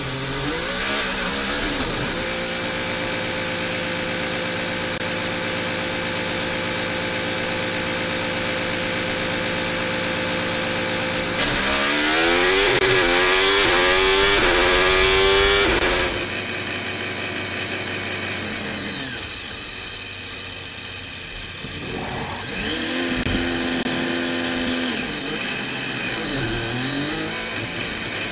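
Onboard sound of a Ferrari Formula 1 car's turbocharged hybrid V6. It pulls away from the pit box with rising revs, then holds a steady drone at constant revs along the pit lane. About twelve seconds in it turns louder, with revs rising and dropping through upshifts at full throttle, and near the end it settles into a steady drone again at pit-lane speed in first gear.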